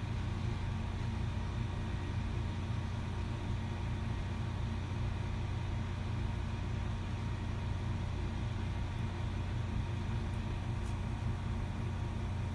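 Steady low engine drone heard from inside a cabin, with a faint steady whine above it and no change in speed.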